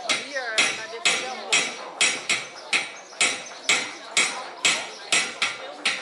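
Coppersmiths hammering copper pots: a steady run of metal hammer blows, about two a second, each ringing briefly.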